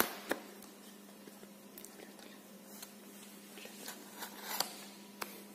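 Scattered faint clicks and light scrapes of a cardboard phone box being handled while a blade slits its seal sticker, over a faint steady low hum.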